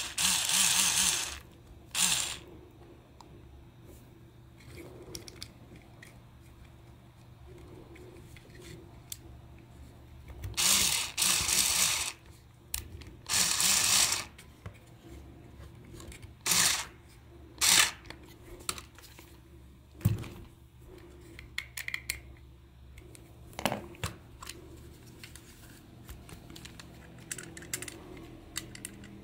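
Cordless electric screwdriver running in short bursts of about a second, driving screws out of a plastic toy housing. Later come sharp clicks and knocks as the plastic parts are handled.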